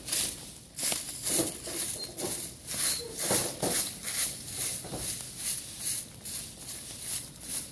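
Stick broom (walis tingting) sweeping dry leaves and ash across rocky ground, brisk scratchy strokes about three a second.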